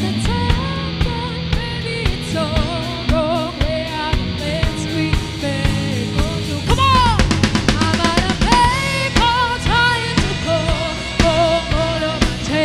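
Live pop-rock band playing: a woman's lead vocal sung into a microphone over drum kit, bass and backing instruments. Her singing turns louder and higher about seven seconds in.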